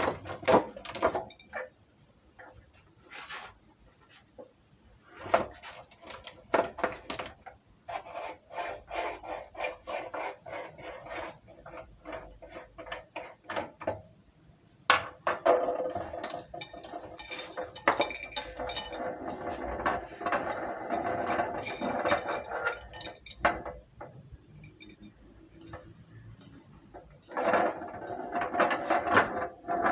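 Meat grinder working in spells: clicking, ratcheting and grating as its mechanism turns and grinds, with a long stretch of dense grinding about halfway through and another near the end.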